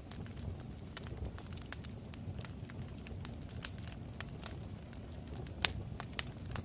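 Fire crackling: irregular sharp pops over a low, steady rumble, with one louder pop about two-thirds of the way through.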